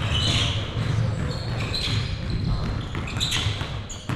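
Several basketballs being dribbled at once on a hardwood gym floor, many overlapping bounces in no shared rhythm, as players run crossover and behind-the-back dribble moves. Short, high sneaker squeaks come in now and then.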